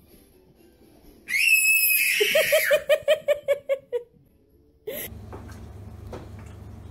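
A small child's high squeal, then a run of quick giggles, about five a second.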